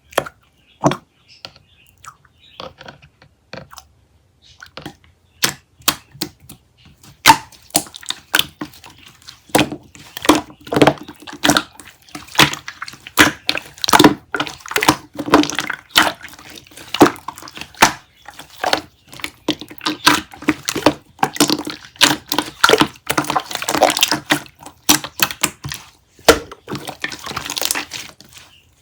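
Slime being squished and pressed by hand, giving a run of sticky crackling clicks and pops. They are sparse at first and grow denser about five seconds in.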